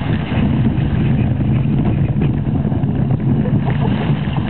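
Steady wind rumble on the microphone over water rushing along the hull of a canoe sailing through choppy waves.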